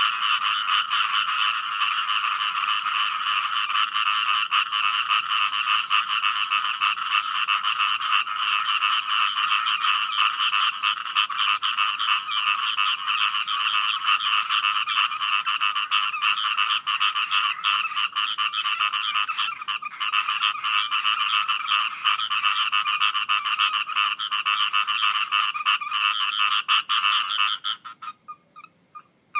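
A dense chorus of frogs calling, many rapid pulsed calls overlapping into a continuous din. It cuts off suddenly near the end, leaving only a few scattered calls.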